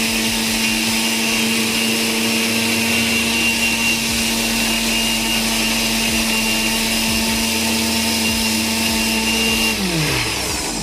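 Prestige mixer grinder's universal motor running steadily at full speed with a steady whine, then cutting out near the end and spinning down with falling pitch. It stops on its own after running for some seconds, a fault the owner puts down to a weak or overheating armature or coil.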